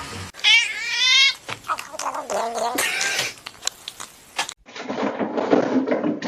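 Domestic cats meowing and yowling, opening with one long wavering call about half a second in, followed by shorter cries and scattered knocks.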